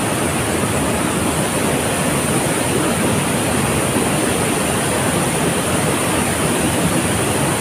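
Waterfall roaring steadily: the constant rush of falling water, unbroken and even in loudness.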